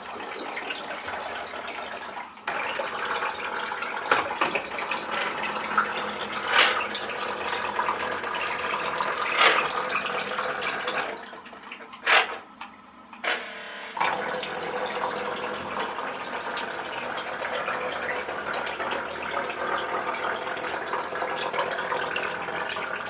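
Small electric motor from an RC toy car driving a toy boat's propeller, running steadily and churning and splashing the water, with occasional knocks of the plastic hull. The propeller sits too high and is not fully in the water. About halfway through the motor stops for a few seconds, with one sharp knock, then starts again.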